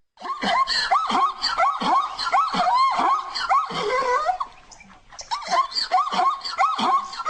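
Zebra calling: a rapid run of short, high, yelping barks in two bouts, with a short break about four and a half seconds in.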